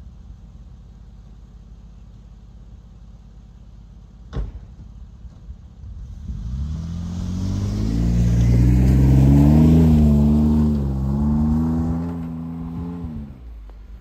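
Jeep engine revving as it drives through snow, growing louder to a peak and then fading as it pulls away, its pitch rising and dipping with the throttle. A single sharp click about four seconds in.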